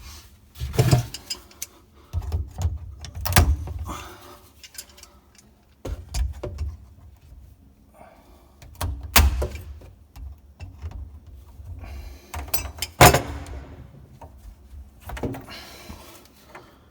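Irregular clunks, knocks and rattles of plumbing parts being handled under a sink, with dull handling rumble between them. Three sharp knocks stand out, about three seconds in, nine seconds in and near thirteen seconds.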